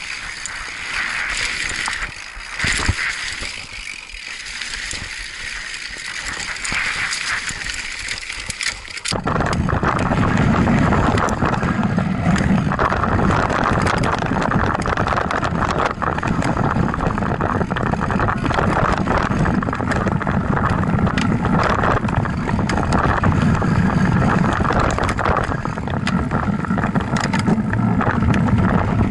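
Mountain bike riding over a dirt trail: tyres crunching on loose dirt with the chain and frame rattling. About nine seconds in the sound changes suddenly to a louder, steady low rumble of tyres and wind buffeting a camera mounted low on the bike frame.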